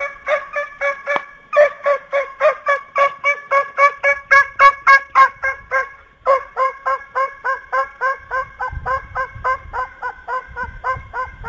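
A bird, of the fowl kind, calling over and over in short identical notes, about three a second, with two brief pauses.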